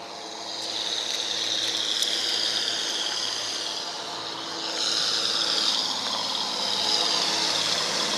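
A fishing boat motoring past: a steady rushing hiss of engine and water that swells about half a second in, over a faint low engine hum.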